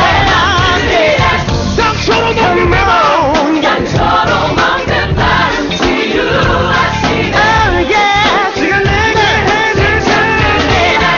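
Gospel song with choir singing over a full band.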